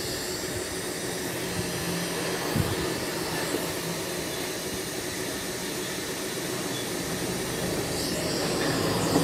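Steady background hiss with no clear source, getting slightly louder toward the end, with one small knock about two and a half seconds in.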